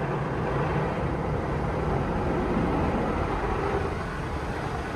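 Automatic car wash equipment running over the car, heard from inside the cabin: a steady rush of noise with a low hum underneath.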